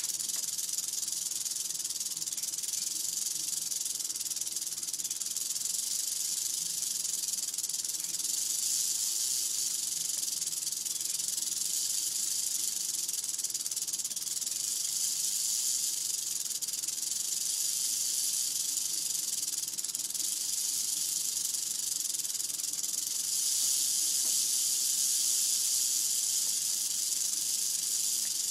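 Mohave rattlesnake's tail rattle buzzing continuously as a high, hissing whir, swelling louder a few times, most strongly near the end. It is the snake's warning signal.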